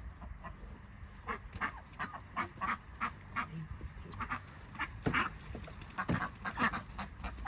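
Ducks quacking in a run of short, irregular calls, several a second.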